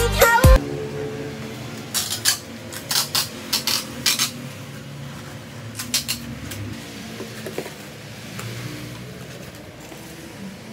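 Jars and cardboard parcel boxes being handled: a quick run of sharp clinks and knocks a couple of seconds in, a few more around six seconds, then only steady room noise.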